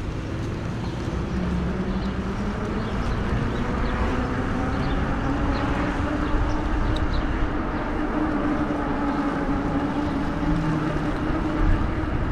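Lectric XP e-bike's rear hub motor whining under way, its pitch creeping slowly up as speed builds, over a steady rush of wind and road noise.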